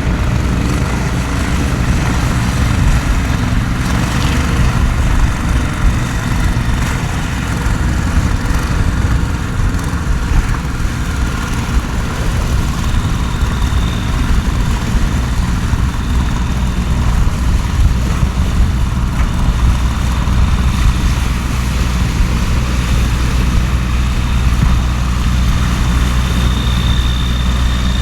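An engine idling steadily with a low hum, under the even hiss of heavy rain. A faint high whine comes and goes in the second half.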